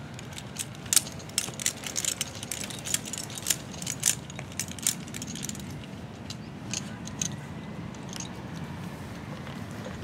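Metal climbing hardware, carabiners and rope devices on an arborist's harness, clinking and clicking as it is handled. A quick run of sharp clicks over the first half gives way to a few spaced-out clinks.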